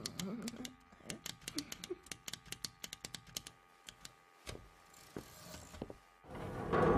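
Small clockwork robot creature clicking and ticking: fast, irregular mechanical clicks like tiny gears and ratchets, with a few warbling chirps in the first two seconds, thinning out after about three and a half seconds. Near the end a loud swelling rumble rises.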